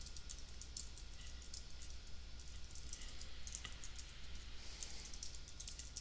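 Faint, irregular clicking of a computer keyboard and mouse, over a steady low hum.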